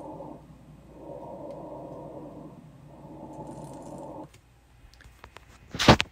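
Recorded lung sounds of crackles (rales), heard through a stethoscope and played back over computer speakers: breaths swelling and fading, about three of them, with the crackling on inspiration. The playback cuts off about four seconds in. A few light clicks and one loud knock follow near the end as the phone is handled.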